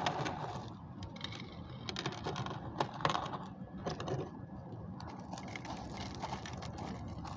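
Small hard pieces of cinder (burnt hard-coke waste) clicking and rattling as they are scooped by hand from a ceramic bowl and poured onto gravel in a terracotta pot. It is a scatter of light clicks, with a few sharper ones about two to three seconds in.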